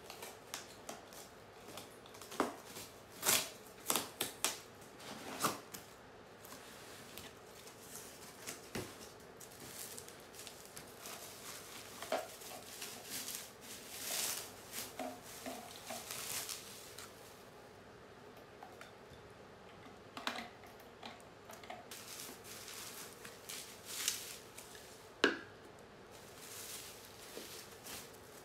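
Cardboard parcel being unpacked by hand: packing tape peeled off, box flaps and plastic bubble wrap crinkling as wrapped items are lifted out. Irregular rustles and crackles with a few sharp taps, busiest in the first few seconds and again in the middle.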